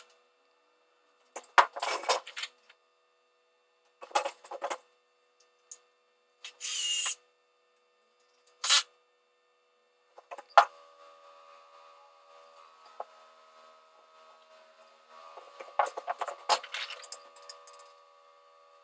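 Short separate bursts of a power drill and hand-tool clatter while ceiling hangers are being fixed; one burst about seven seconds in rises in pitch. After about ten seconds there is a faint steady hum, with a run of clicks and knocks near the end.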